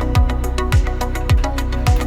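Background music with a steady beat: a deep kick drum about every 0.6 seconds over a sustained bass line and light ticking percussion.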